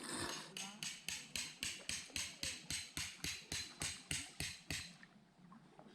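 A hammer striking about seventeen times in quick, even succession, roughly four blows a second, then stopping.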